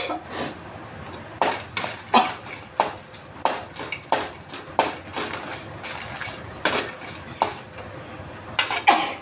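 Metal utensil clinking and scraping against a pan as it is stirred, in short irregular strikes about every half second, with a louder cluster near the end.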